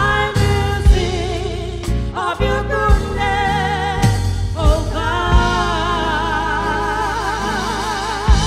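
Two women singing a gospel duet with strong vibrato, their voices in harmony, over a band accompaniment with drum hits.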